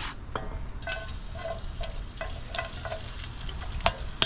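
Chopped onions sizzling in hot oil in a wide metal pot, with a metal spoon scraping and clinking against the pot as they are stirred, about two or three strokes a second, the sharpest one near the end.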